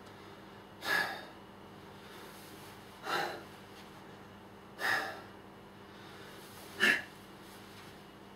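A man breathing hard, with a sharp, forceful breath about every two seconds, four in all. He is catching his breath between reps of one-legged pistol squats.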